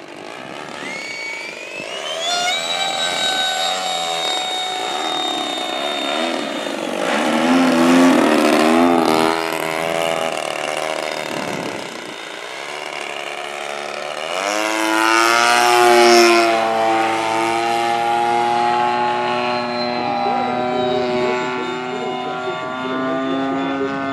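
Gas engine and propeller of a radio-control aerobatic plane, a DLE-35RA single-cylinder two-stroke, buzzing in flight. Its pitch rises and falls through the manoeuvres, and it is loudest about eight seconds in and again around sixteen seconds in.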